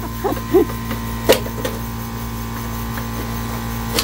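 A steady mechanical hum from a running motor, with a single sharp metallic click about a second in.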